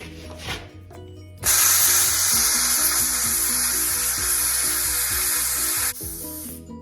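Handheld plasma cutter firing on steel: a loud, even hiss starting about a second and a half in, held for about four and a half seconds and cutting off sharply, followed by a shorter, softer hiss. Background music plays throughout.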